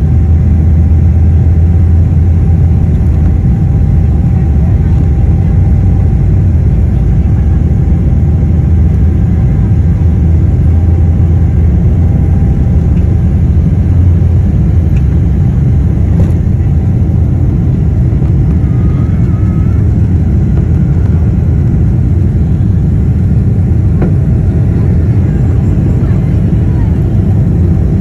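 Cabin noise of a Boeing 777-300 taking off, heard from a window seat over the wing: the jet engines at takeoff thrust make a loud, steady low rumble. A faint whine fades out about halfway through.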